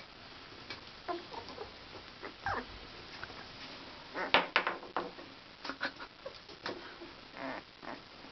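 Very young Akita puppies squeaking and whimpering in short, high cries, the loudest a quick cluster about four seconds in.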